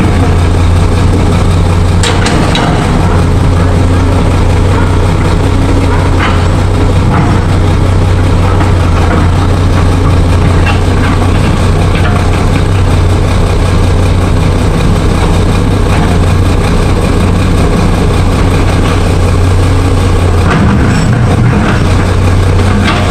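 An engine idling steadily with a strong low hum, and a few faint knocks over it.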